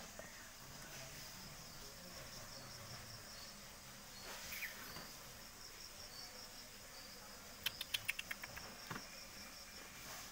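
Insects chirping steadily in the background, a high, evenly pulsing trill, with a quick run of sharp clicks about eight seconds in.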